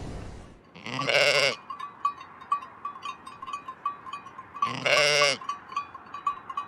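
Sheep bleating: two quavering baas about four seconds apart, over a faint, rapid ticking chirp in the background.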